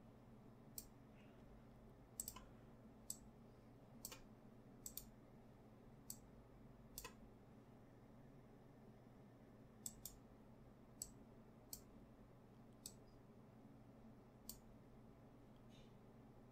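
Computer mouse clicking: about fifteen sharp, irregular clicks, some in quick pairs, over near silence with a faint steady low hum.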